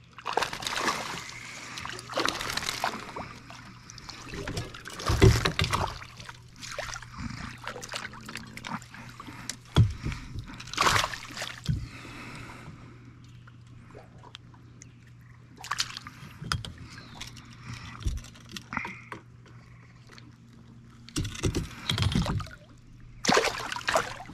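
Water splashing and sloshing in irregular bursts, several seconds apart, over a faint steady low hum.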